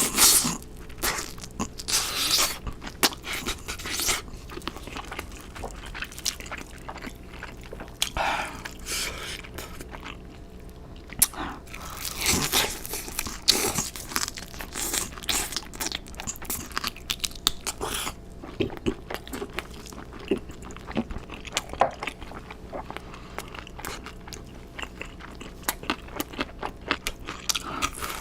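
Close-miked crunching bites and chewing of crisp fried food, with sharp crackles as the coating breaks and repeated chewing between bites.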